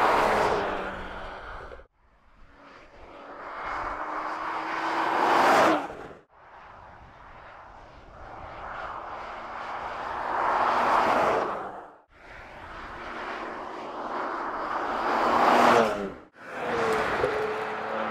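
Porsche Macan GTS's twin-turbo V6 engine and exhaust in a series of drive-bys, each swelling as the car nears and passes and then fading, with the engine note dropping in pitch as it goes by. Each pass breaks off abruptly into the next: four passes, with a fifth approach building near the end.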